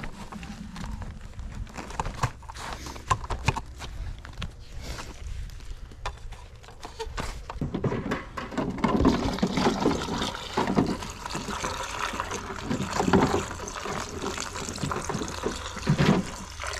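Gloved hands handling sap-collecting gear, with scattered knocks and rustles; from about eight seconds in, maple sap poured from a plastic jug into a plastic collection tank, splashing in uneven surges.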